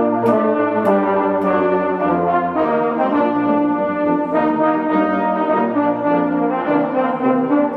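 School band rehearsing Christmas music, brass to the fore: held chords that shift every second or so, with a few sharp percussion strokes near the start.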